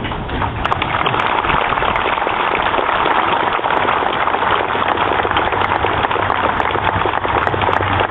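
Crowd applauding: a dense, steady clatter of many hands clapping.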